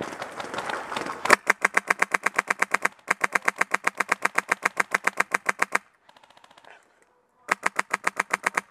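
Airsoft rifle firing full-auto at about ten shots a second: a long burst starting about a second in and running some four seconds with one tiny break, then a second burst near the end, with faint clicks between them. Before the first burst, dry leaves rustle underfoot.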